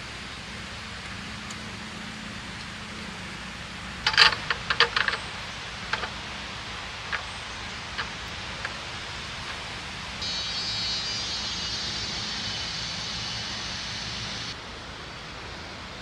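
Steady rushing of a river, with a quick cluster of sharp clicks and knocks about four seconds in and a few single clicks after. In the second half, a high, even buzz runs for about four seconds and stops abruptly.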